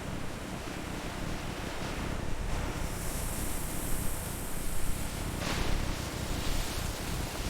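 Steady rushing noise with a low rumble underneath; the hiss brightens for a stretch a few seconds in and again for a moment more than halfway through.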